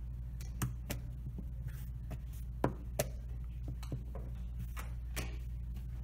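Plastic chess pieces are set down on a vinyl board and the buttons of a digital chess clock are tapped during fast blitz play. There are about five sharp clicks and knocks, twice in quick pairs about a third of a second apart, the loudest about two and a half seconds in. Under them runs a steady low room hum.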